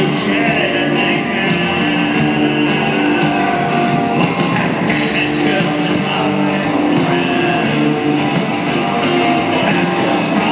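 Rock band playing live, guitar-led over drums and bass, in a stretch with no sung lyrics.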